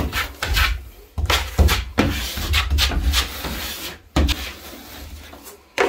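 A plastering knife scraping setting compound along a drywall ceiling joint in a series of uneven strokes, with low bumps from handling underneath.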